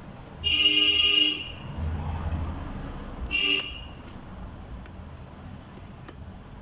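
A horn sounds twice: a long toot of about a second, then a short one about two seconds later, with a low rumble between them.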